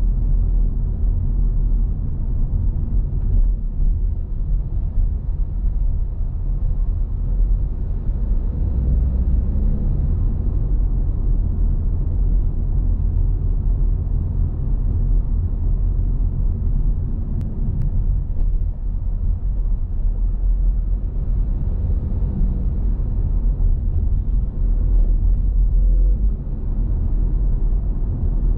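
Steady low rumble of a car being driven, its engine and road noise running without letup.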